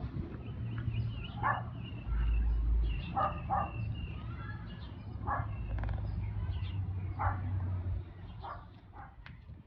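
A dog barking about six times at spaced intervals, with birds chirping and a low rumble underneath.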